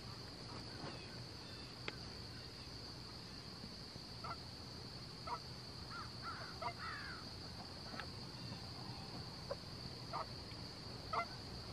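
Faint, scattered honks and clucks of Canada geese as a flock approaches, over a steady high-pitched drone.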